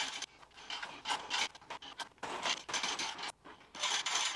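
A 3/8-inch pressure washer hose being pulled and dragged across interlocking plastic garage floor tiles: a run of irregular scraping rubs, each stroke a second or less, with short pauses between pulls.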